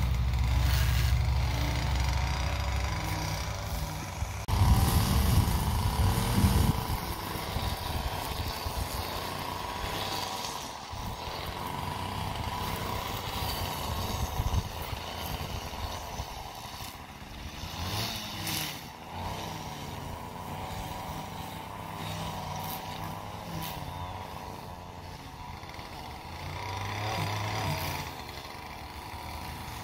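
Small petrol engine of lawn-care equipment running, its pitch wavering up and down. A deeper, louder engine note in the first few seconds fades away.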